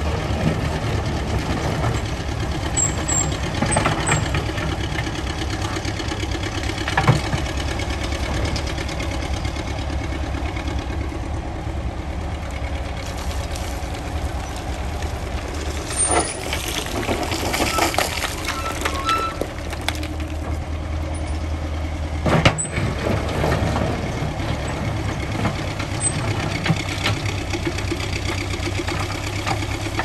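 Ruston Bucyrus 19-RB cable-operated face shovel working: its engine runs steadily under load, with sharp metallic knocks from the machinery. About halfway through comes a gritty rush of rock and stone as the dipper digs into the spoil.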